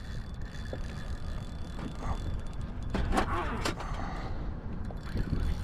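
Fishing reel's drag running as a hooked fish pulls line off it, with a few sharp clicks about three seconds in, over a low steady rumble.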